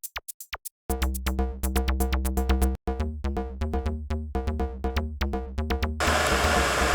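Electronic background music with a steady drum-machine beat and bass. About six seconds in, the music gives way to a steady rushing hiss: an electric kettle heating water, its heater just switched back on.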